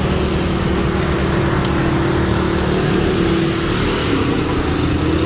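Motor scooter engine running close by, a steady low hum.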